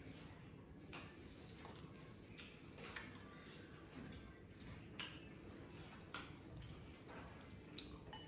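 Close-miked eating sounds from roast chicken being eaten: wet mouth and chewing noises with sharp clicks every second or so, the loudest about five seconds in.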